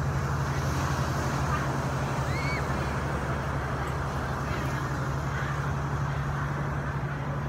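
Steady low motor hum, like a running engine or passing traffic, over a constant background hiss, with one faint short chirp about two and a half seconds in.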